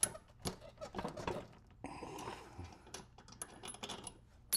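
Steel tool parts clinking and clattering as a bearing separator is unbolted and taken off a lawn mower blade adapter: a string of sharp clicks and knocks, some with a brief metallic ring, and a short scrape in the middle.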